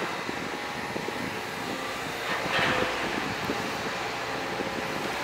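Liebherr R926 compact excavator's diesel engine and hydraulics running under load as the boom and tiltrotator bucket move, with small knocks and clanks. The sound swells louder for about a second halfway through.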